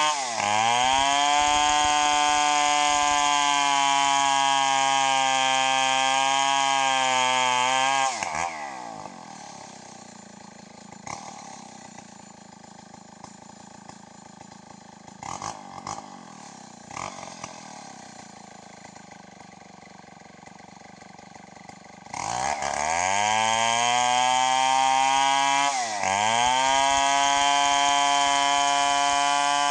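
Stihl 070 two-stroke chainsaw running at full throttle, ripping lengthwise through a teak log. About eight seconds in, the throttle is let off and the engine note falls away to a much quieter running. After about fourteen seconds it revs back up into the cut, the note dipping briefly twice as the chain bites.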